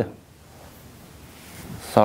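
A pause in a conversation: low, steady room hiss, with the tail of a man's voice at the very start and another man starting to speak at the very end.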